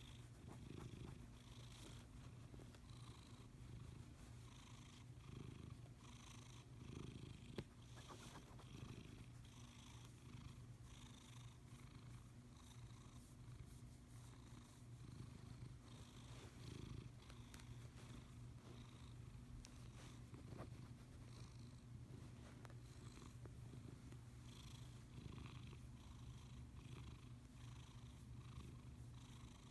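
Domestic cat purring faintly and steadily, a wheezy purr that swells and eases every second or two.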